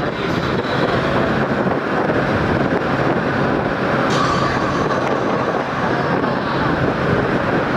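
Steady road noise of a moving vehicle, with a low engine hum underneath.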